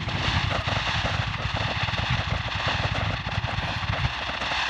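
Fireworks crackling in a dense, continuous barrage of rapid small pops, easing slightly near the end.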